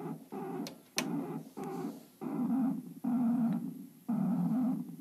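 Jamming signal coming through a CB radio's speaker: a harsh, growl-like sound keyed in repeated bursts, about seven of them, the early ones half a second long and the later ones nearly a second. Two sharp clicks come about a second in.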